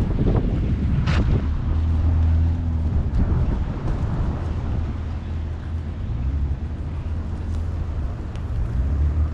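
Wind buffeting the microphone over traffic passing on a slushy street, engines humming as vehicles go by. A brief sharp crack about a second in.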